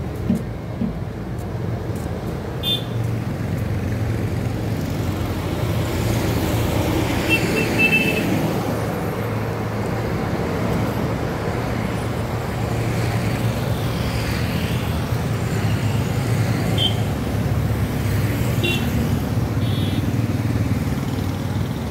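Road traffic passing close by: a heavy truck and motorcycles with a steady engine rumble, and short horn beeps several times.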